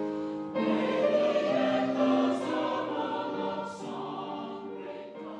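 A choir singing held chords, growing gradually quieter over the last few seconds.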